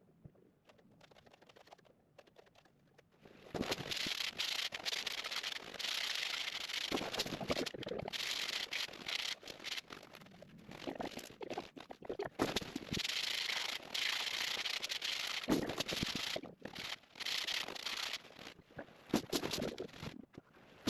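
Repeated scraping strokes of a second or two each, with short gaps between them, starting about three and a half seconds in.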